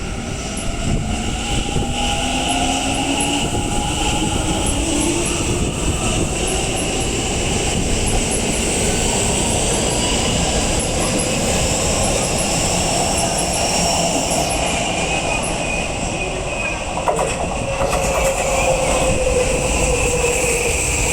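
Electric commuter train moving at a station platform: its wheels running on the rails, with the whine of the traction motors gliding in pitch, rising over the first few seconds and falling again near the end.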